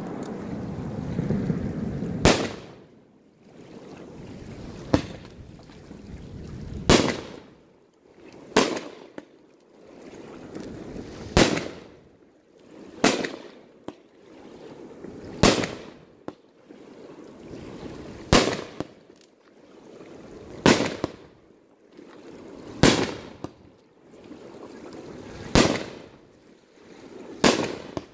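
Aerial firework shells bursting one after another, about a dozen sharp bangs at a steady pace of roughly one every two to three seconds. A hiss swells up before each bang.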